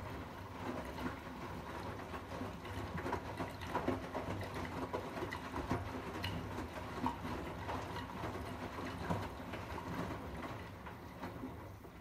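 Arçelik 8120 PMG front-loading washing machine in its rinse cycle: the drum turning with wet laundry tumbling inside, a motor hum under many small irregular knocks. The sound fades near the end as the drum slows to a stop.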